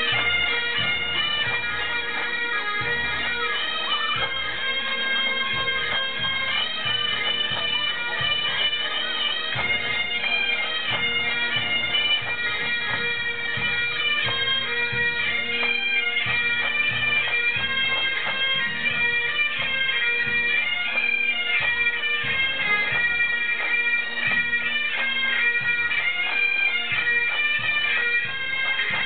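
A pipe band of Great Highland bagpipes playing a tune in unison over their steady drones, with the band's drums beating underneath.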